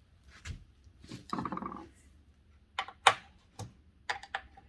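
Metal clicks, taps and a short rattling scrape about a second in, as aluminium track-saw guide rails and their TSO GRC-12 rail connectors are handled and tightened.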